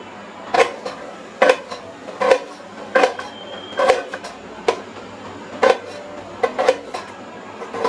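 Knife chopping red onion on a steel plate, the blade knocking sharply against the metal about once a second.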